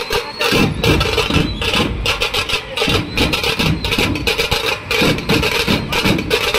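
A large troupe of dhol drums, big barrel drums beaten with sticks, playing together in a loud, fast, driving rhythm of sharp strokes.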